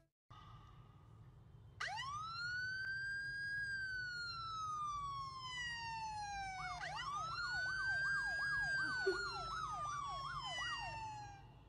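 Police siren sound played from a smartphone's speaker: a long wail that rises fast and then slowly falls, followed by a second rise with a fast up-and-down yelp laid over it for the last few seconds.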